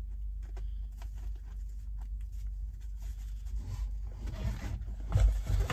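Hands handling a crusty ciabatta sandwich, with faint crackles and small clicks as the bread is pressed together, over a steady low hum. Heavier bumps and rustling come near the end.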